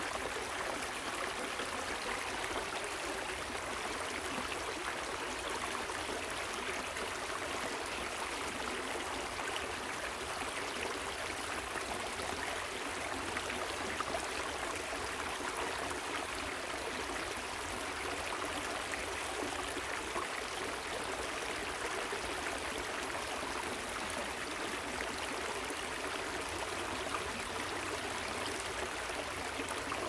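Waterfall and river water rushing steadily, an even, unbroken hiss.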